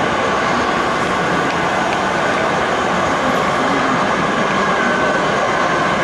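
Steady, even hall noise, a dense hiss and rumble with a faint high hum running through it and nothing standing out.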